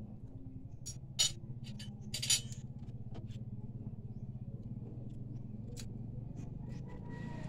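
Tableware being handled while eating: a few sharp clicks and light scrapes of a spoon and dishes against a plate and a small bowl, the clearest two about a second apart, over a steady low hum.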